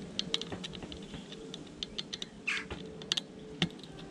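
Irregular small sharp clicks and ticks of a precision screwdriver and tiny screws and parts being handled on a digital alarm clock's circuit board, with a brief scrape about halfway through.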